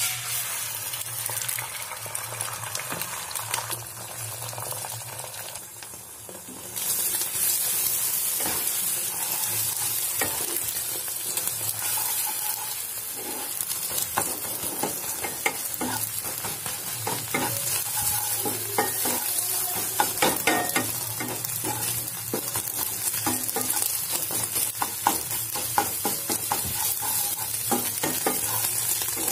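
Beaten egg poured into hot mustard oil in a non-stick frying pan, sizzling as it fries; the sizzle gets louder about seven seconds in. From about ten seconds in, a wooden spatula repeatedly scrapes and stirs the setting egg against the pan.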